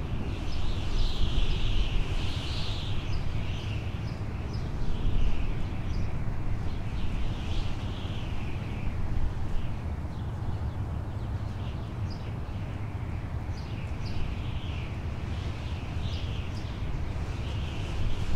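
Outdoor field-recording ambience: a steady low rumble with small birds chirping again and again over it.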